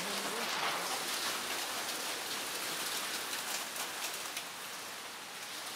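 Hailstorm downpour: rain and small hailstones pelting pavement and roofs, a steady dense hiss with fine ticks of impacts.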